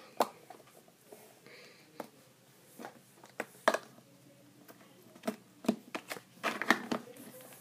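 Cream-coloured lotion slime being squished and poked by hand, giving a string of irregular sharp clicks and pops, thickest near the end.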